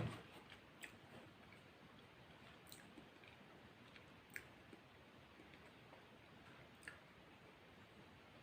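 Quiet eating sounds: soft chewing with a few small, sharp mouth clicks, after a dull knock at the very start.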